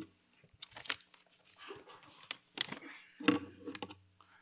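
Sheets of paper being handled and set down on a lectern: a few short rustles and taps, over a faint steady hum.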